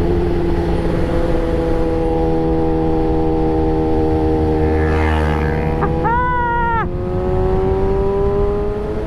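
Yamaha R3's parallel-twin engine running at steady, high revs, its pitch sagging slightly midway and climbing again over the last few seconds. A short, higher tone sounds for under a second about six seconds in.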